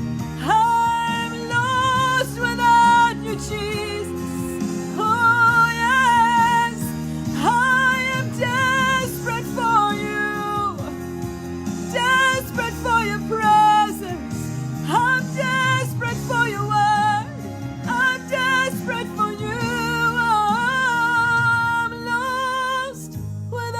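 Worship song: a singer holding long notes with vibrato over steady instrumental accompaniment.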